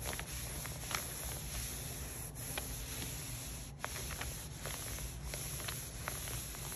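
A cloth rubbed and smoothed over PET transfer film lying on a T-shirt: a soft, scratchy rubbing with scattered small ticks and crinkles from the film.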